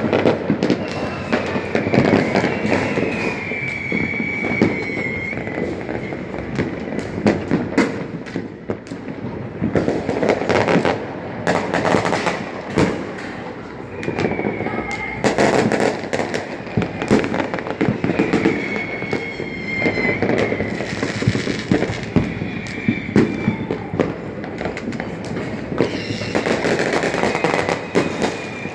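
Rojão fireworks going off in a long, rapid barrage of bangs and crackles, with a high falling tone heard several times among the blasts.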